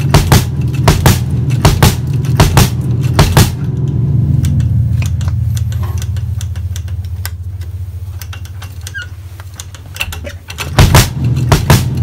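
Bass drum kicked with a chain-drive pedal in quick strokes for about three and a half seconds, played without the LOUDSTEP sphere on the footboard. The drum's low ring then fades slowly under a few faint clicks of the pedal being handled, and the kicks start again near the end.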